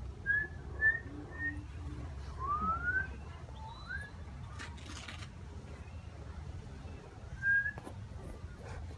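A sheepdog handler's whistle commands to a herding dog: three short level whistles, then two rising whistles, and one more short whistle near the end.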